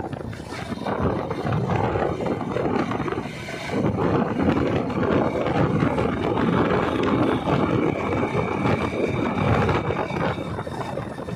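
Wind buffeting the microphone of a phone carried on a moving motorcycle, with the motorcycle's engine running underneath. The rumbling rush rises and falls unevenly.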